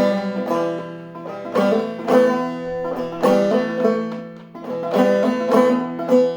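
Long-neck five-string banjo played clawhammer style in a low open G minor tuning (eBEGB): a steady picked instrumental break, with plucked notes ringing over low droning strings in a minor key.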